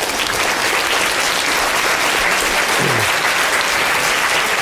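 A large audience applauding steadily, the sound of many hands clapping at once.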